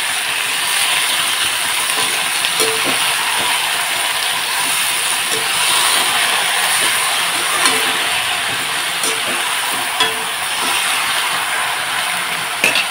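Wet, freshly washed spinach sizzling steadily in hot oil in a kadhai as it is turned over and mixed, with scattered small clicks and knocks of the stirring against the pan.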